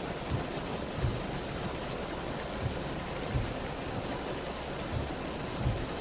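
Heavy typhoon rain pouring down as a steady dense hiss, with a few short low thumps scattered through it.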